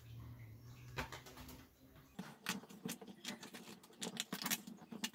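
Hands handling and flexing a thin 3D-printed copper-infused PLA mask piece, giving irregular small plastic clicks, taps and scrapes that grow denser about two seconds in.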